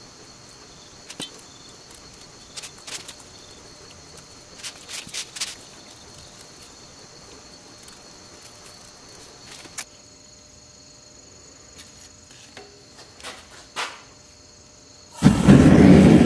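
Hands working green sand around a foam pattern in a steel bowl make faint, scattered gritty clicks and scrapes over a steady high hiss. About fifteen seconds in, a loud steady roar of a homemade metal-melting furnace burning starts abruptly.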